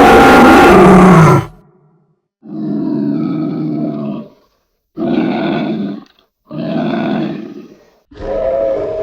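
A bear roaring loudly, the roar ending about a second and a half in. After a short pause come a run of four shorter, quieter growls with brief gaps between them.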